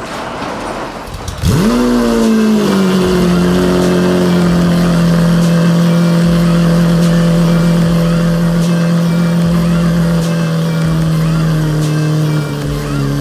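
Lamborghini Aventador's 6.5-litre V12 cold-starting: it fires about a second and a half in with a quick flare of revs, then settles into a steady fast cold idle that drops a step lower near the end.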